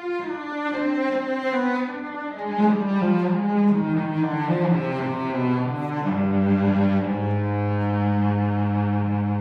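Cello playing bowed notes that move from one pitch to the next, then settle about six seconds in into a long held low note with a higher note sounding above it.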